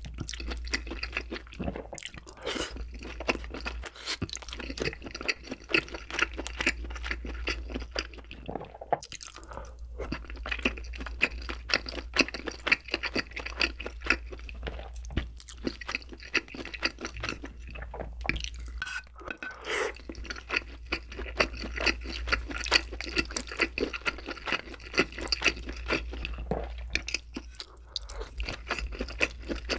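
Close-miked mouth sounds of someone eating Korean braised chicken (jjimdak) and wide glass noodles: chewing, with a dense run of small sharp clicks and smacks.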